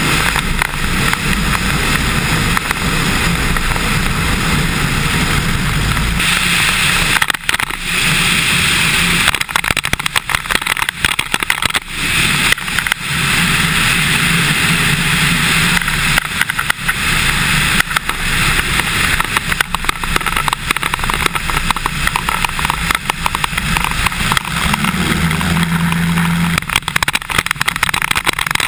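Cessna 150's Continental O-200 four-cylinder engine and propeller running, heard through heavy wind noise buffeting a camera microphone mounted outside on the wing strut.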